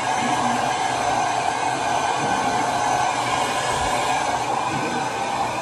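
Handheld hair dryer running steadily, a constant blowing rush with a hum in it, drying a wet dog's coat.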